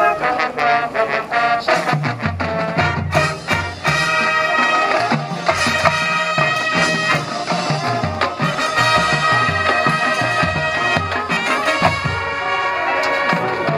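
High school marching band playing: brass holding loud chords over drum and percussion hits.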